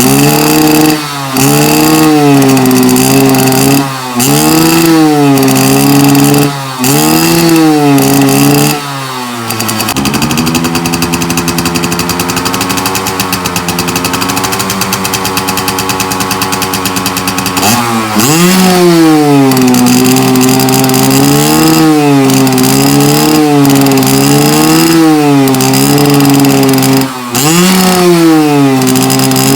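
Motorcycle engine revved in short repeated blips, each rising and falling in pitch. It settles to a steady idle for several seconds in the middle, then is blipped again.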